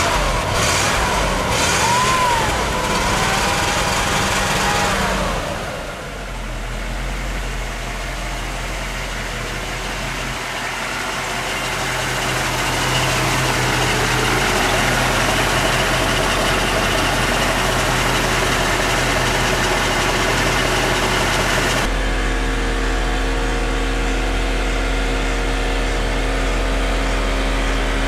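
A 1964 Ford Thunderbird's 390 V8 idling steadily. A few clicks and a brief whistle-like glide come early, and the hum changes character suddenly about three-quarters of the way through.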